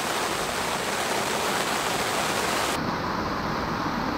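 Heavy rain falling, a steady even hiss. Near the three-second mark the sound changes abruptly and loses its highest hiss.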